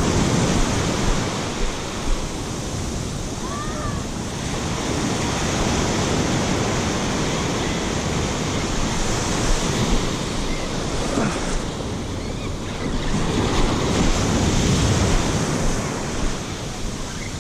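Ocean surf breaking and washing on the beach, swelling and easing, with wind buffeting the microphone.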